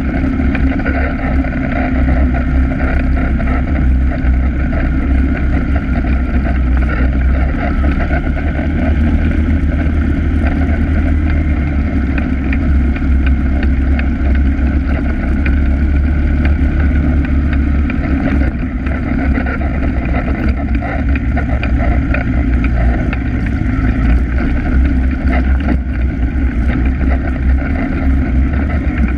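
ATV engine running steadily while riding along a dirt trail, heard close up from the machine the camera is mounted on.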